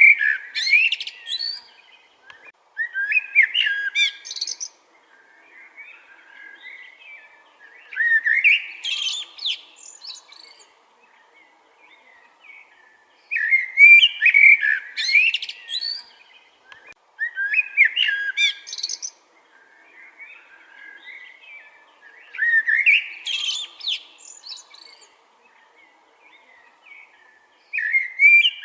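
Common blackbird singing: loud phrases about two seconds long that start with low warbled notes and rise into higher twittering, repeated every four to five seconds, with softer song in the pauses between.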